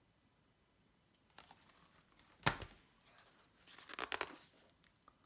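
Paper crinkling and rustling, with one sharp snap about two and a half seconds in and a quick run of crinkles near four seconds.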